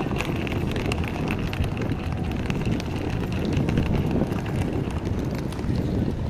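Busy pedestrian street ambience with wind buffeting the microphone, a steady low rumble, and many light clicks and taps of footsteps and wheels on brick paving.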